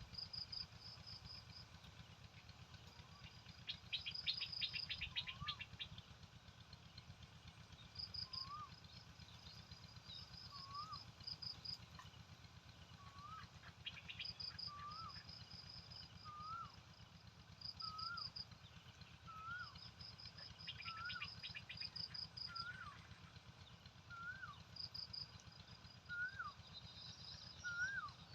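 Birds calling: a short rising whistle repeats every second or two and slowly climbs in pitch, over groups of quick high chirps and a few brief bursts of rapid chattering.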